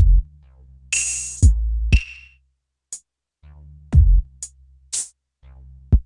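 Sparse electronic drum-machine beat playing through One Knob compressor, exciter and reverb plugins. Deep kicks fall in pitch and ring into sustained low bass notes. There is a snare hit about a second in and a few short hi-hat ticks, with a brief gap in the middle.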